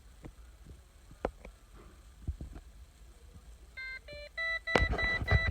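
Scattered clicks, then an electronic chime in the Holden VZ Commodore's cabin starting to beep about four seconds in, in quick repeated pulses, with louder clicks and knocks over it near the end.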